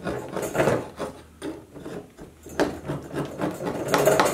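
Hive tool scraping old wax and propolis off the bottom bar of a wooden hive frame, metal on wood, in several separate strokes with a short pause in the middle, the last stroke the loudest.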